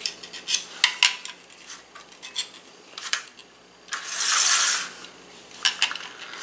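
Tyco slot cars on a plastic track, a run of sharp clicks and clattering ticks as they run and rattle over the track. About four seconds in comes a brief rasping hiss as one car is handled and pushed along its slot by hand.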